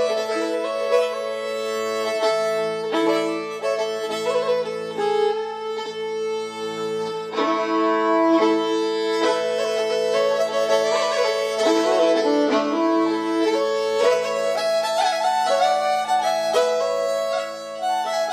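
Instrumental background music: a long-held low drone under a moving, fiddle-like melody.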